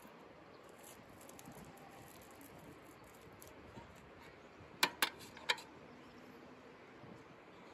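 Faint handling of bicycle wheels being strapped and moved, with three sharp clicks close together about five seconds in.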